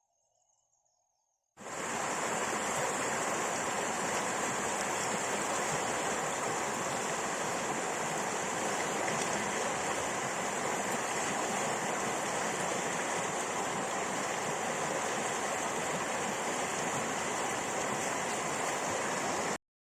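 Steady rushing of flowing water, as from a stream or waterfall, starting suddenly about a second and a half in and cutting off abruptly near the end. Faint insect chirping is heard before the water starts.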